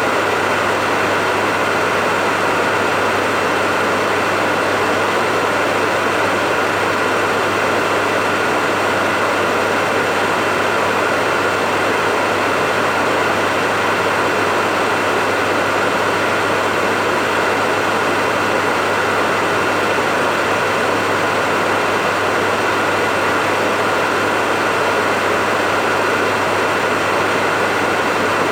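Hair dryer running steadily, a constant rushing blow of air with a motor hum, played as white noise to lull a baby to sleep.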